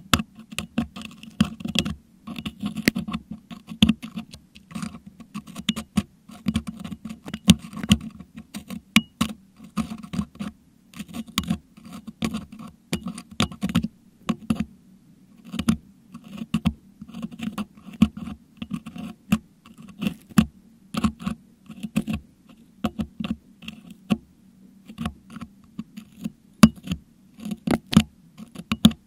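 Metal dental hook scraping and picking crushed meringue out of a Blue Yeti microphone's grille, picked up by that same microphone: rapid, irregular clicks and scratches with a low rumble beneath them.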